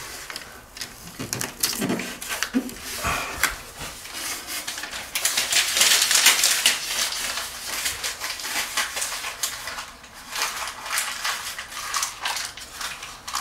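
Aluminium foil vapour-barrier tape crinkling and crackling as it is handled and pressed down along the insulation board joints. The crackle comes in a dense run of small clicks, busiest around the middle.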